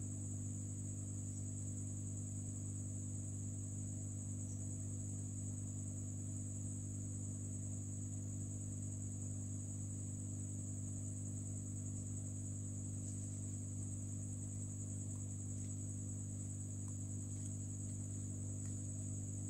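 Steady electrical hum with a continuous high-pitched whine above it, unchanging throughout.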